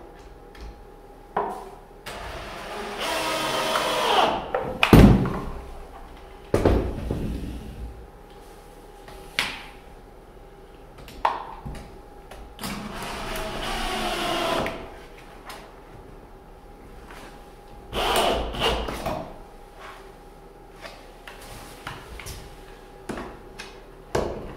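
DeWalt cordless drill driving screws through a plastic electrical box into a wooden stud: about four short runs of the motor, each rising in pitch as it spins up, with clicks and knocks of handling between them. A sharp knock about five seconds in is the loudest moment.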